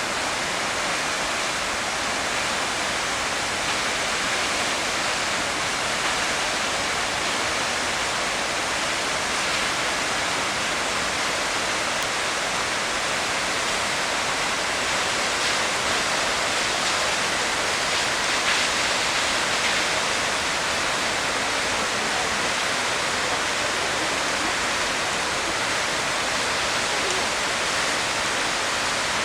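Yonako Great Falls, tall mountain waterfalls, rushing steadily: an even, unbroken hiss of falling water.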